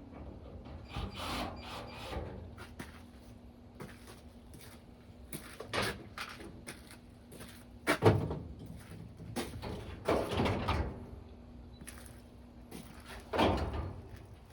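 Knocks, clatter and scraping from handling and taking apart a dryer's metal panels and parts, loudest in a few sharp strokes in the second half, over a steady low hum.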